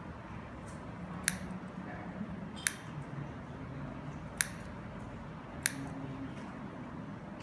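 Scissors snipping a piece of plastic drinking straw into fine fringe: four sharp snips, spaced a little over a second apart.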